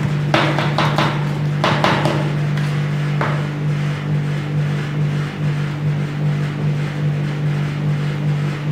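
Metal spatulas chopping and clacking against a stainless steel ice cream cold plate, a quick run of clicks in the first two seconds and a last one about three seconds in, then softer scraping as the mixture is spread flat. A steady low hum from the cold plate machine runs underneath.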